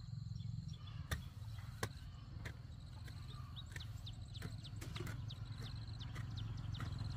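Small birds chirping in short falling notes over a steady low rumble, with two sharp knocks about one and two seconds in.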